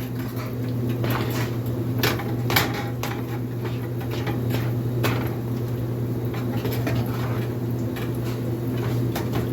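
A spoon stirring a thick ground-beef and cheese dip in a pan, with scraping and a few sharp knocks of the spoon against the pan, over a steady low hum.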